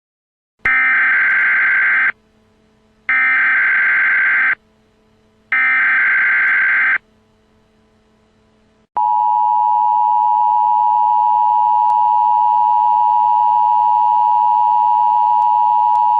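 Emergency Alert System broadcast tones: three short bursts of SAME header data, each about a second and a half long with a pause between. About nine seconds in, the steady two-tone EAS attention signal starts and holds.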